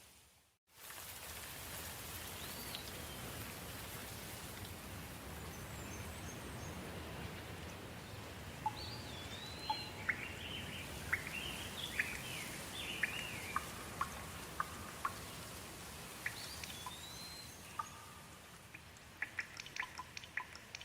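Steady soft rain falling, with birds chirping and whistling through it, most busily around the middle. There is a brief dropout just under a second in. Near the end, sharp, close drips tick rapidly.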